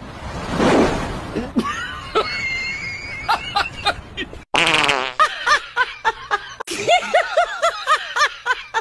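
A loud fart sound about a second in, followed by whistle-like tones and a run of short, rhythmic laughs.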